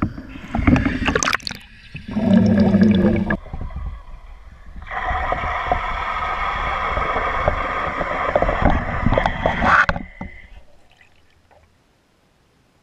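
Muffled water and boat noise picked up by a GoPro in its waterproof housing as it goes down into the water: uneven knocks and sloshing at first, then a steady humming drone for about five seconds that fades away near the end.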